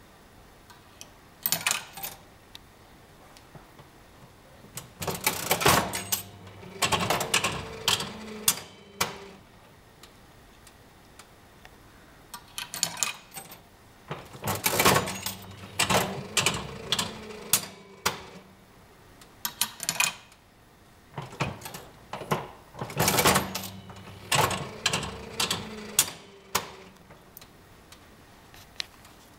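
Vintage 2p 'Galaxy' one-pull fruit machine being played three times: each play is a burst of mechanical clunks and rattling clicks as the reels spin and stop, with a steady hum underneath.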